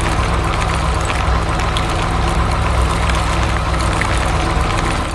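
Road roller engine running steadily: a constant low hum with an even noise over it.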